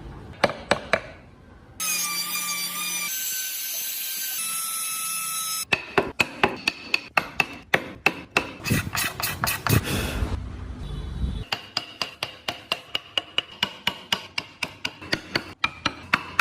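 Mallet blows on a wood carving chisel, rapid sharp taps at about four a second. About two seconds in, a power tool whines steadily for roughly four seconds, its pitch stepping twice.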